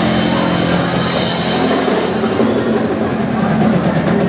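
Live ska band playing loud, with the drum kit driving the beat, as picked up by a phone in the crowd.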